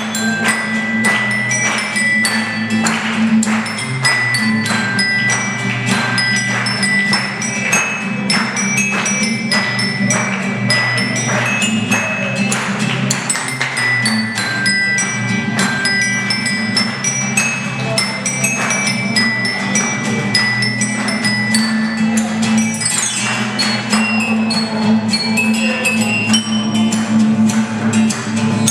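An Ecuadorian tune played on a homemade set of tuned tubes, struck notes ringing out in a quick, even melody over a steady low sustained bass and rhythmic percussion.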